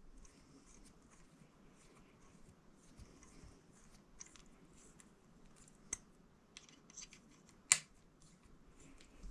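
Faint scattered clicks and rustling of fingers handling a small tool or part against the printer's frame, with a clear click near the six-second mark and a sharper, louder click a little later.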